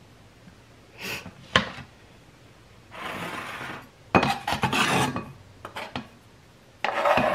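Knife blade scraping diced mango off a plastic cutting board into a glass bowl: a series of scrapes, one steady for about a second near the middle, followed by a louder choppy run, with a few sharp clicks between them.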